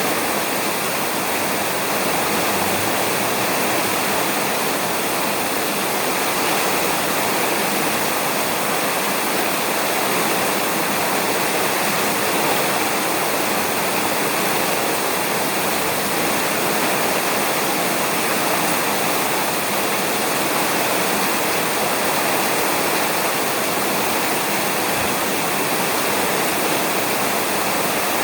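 Steady rain falling on a roof, an even, unbroken hiss.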